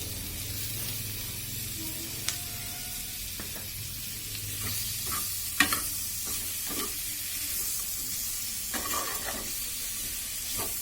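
Chicken, onion and capsicum dry-frying in a pan on a low flame with very little oil, sizzling steadily while being stirred. The utensil scrapes and knocks against the pan now and then, with one sharper knock about halfway through.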